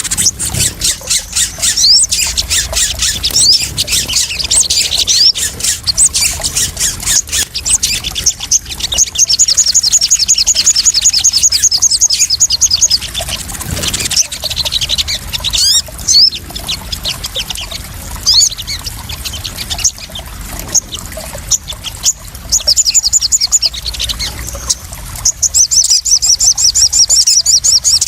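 Sogon birds calling in quick high chirps and fast trilled runs of repeated notes, over splashing, trickling water.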